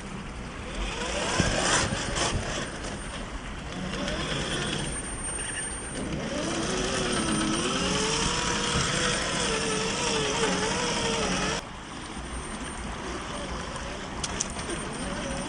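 Radio-controlled rock crawler's 45-turn 540 brushed electric motor and gears whining, the pitch rising and falling with the throttle, over a steady outdoor rush of noise; the sound changes abruptly about twelve seconds in.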